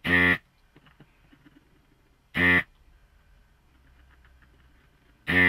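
Vacuum desoldering iron's suction pump buzzing in three short bursts of about a third of a second each, roughly two and a half to three seconds apart, as it sucks molten solder off through-hole pins on a circuit board.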